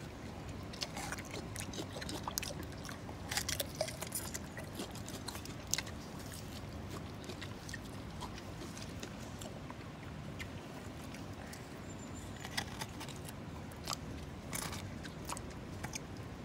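Chimpanzee chewing and biting raw zucchini up close: irregular crunchy bites and wet mouth sounds over a steady low background noise.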